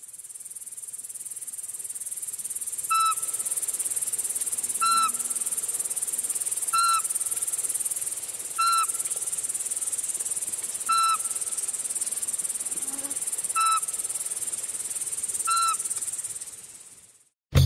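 Eurasian pygmy owl singing: seven short, evenly spaced whistled notes about two seconds apart, over a steady high-pitched insect chorus. The whole soundscape fades in at the start and fades out just before the end.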